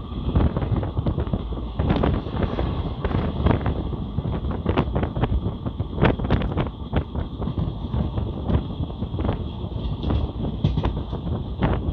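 Moving train heard from on board: a steady rumble with irregular clattering knocks, and wind buffeting the microphone.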